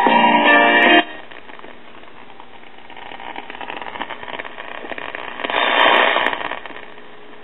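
1946 Kitchenaire five-tube AM radio being tuned across the dial: a station's audio cuts off about a second in, giving way to hiss and crackling static between stations, which swells briefly about three-quarters of the way through.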